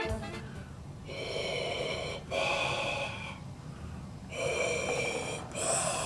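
Darth Vader's respirator breathing: two slow, hissing breath cycles, each a drawn-in breath followed by an out-breath, the first starting about a second in and the second about two seconds after it.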